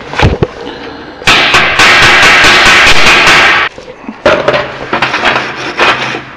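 Electric arc welding a steel stud onto a spacer: a loud, steady crackling arc that lasts about two and a half seconds and then stops. A few knocks come just before it, and scraping and tapping on the metal follow it as the weld is cleaned.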